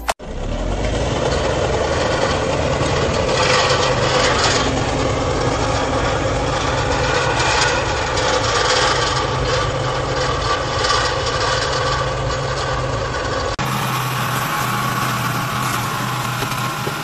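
Small farm-machine engines running steadily, with rough mechanical noise over a steady low hum. About thirteen seconds in, the sound cuts to a different engine: a walk-behind brush mower running as it pushes through tall weeds.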